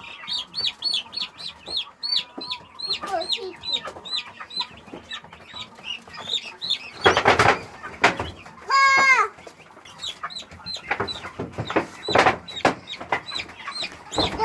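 Young chicks peeping rapidly, short high calls about three a second, with a few loud scuffling bursts around seven and eleven to twelve seconds in and one louder falling call about nine seconds in.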